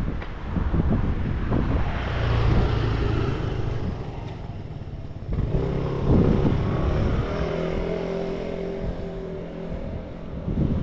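A motor vehicle's engine going by on a street, with a steady engine hum that comes in about halfway through and holds for several seconds. Wind buffets the microphone with a gusty low rumble.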